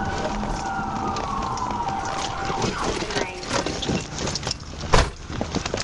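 Police car siren wailing, its pitch gliding up and down, then stopping about three seconds in. A run of quick knocks and scuffs follows, with one loud thump about five seconds in.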